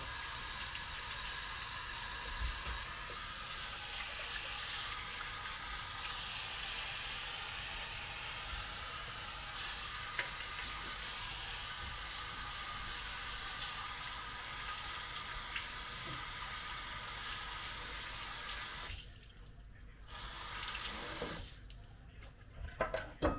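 Water running from a kitchen tap into a sink as the sink is rinsed clean. The flow stops near the end, followed by a brief run of water and a few clicks.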